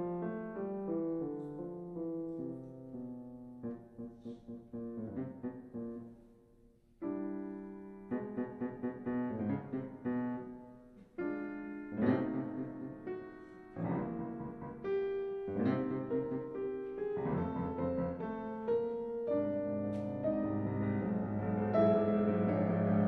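Solo piano music: single notes and chords struck and left to decay, the playing growing fuller and louder near the end.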